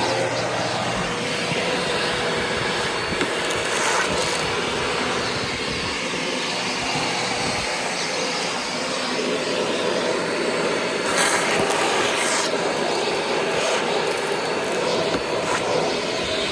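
Vacuum cleaner running steadily over a floor, with brief crunchy crackles as debris is sucked up, most clearly about four seconds in and again about eleven to twelve seconds in.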